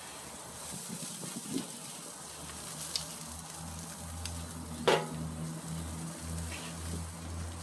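Meat sizzling over a charcoal grill, with a sharp knock about five seconds in and a low rumble coming in partway through.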